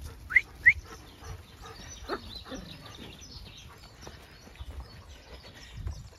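A flock of Zwartbles sheep and small dogs moving along a muddy track, with soft scattered footfalls. Two short, high, rising squeaks come close together near the start, and a falling cry follows about two seconds in.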